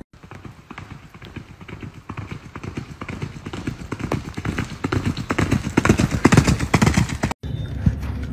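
Hoofbeats of a ridden horse cantering on a gravel and dirt track, a rapid rhythm of hoof strikes growing louder as the horse approaches. It cuts off suddenly near the end, followed by a brief low rumble with a single thud.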